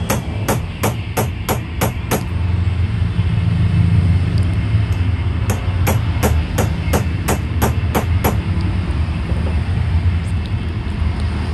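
Sharp metal-on-metal knocks, about three a second, in two runs with a pause of a few seconds between them. A steel sleeve is tapping a tight new drive gear down onto the spindle shaft of a Mollar 13 mm electric drill until it seats fully. A steady low hum runs underneath.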